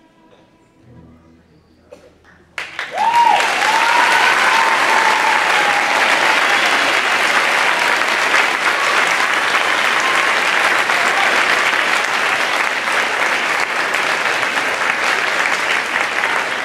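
The string orchestra's last held chord fades out, and after a couple of seconds of quiet the audience breaks into loud, steady applause about two and a half seconds in, with a few cheers in its first few seconds.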